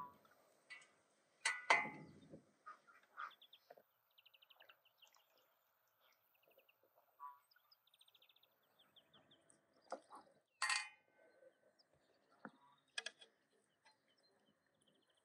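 Metal tongs clinking and knocking against a large metal cooking pot as turkey pieces are stirred and lifted out of the broth, a few sharp clinks with the loudest about two seconds in and about ten seconds in. Small birds chirp in quick little trills between them.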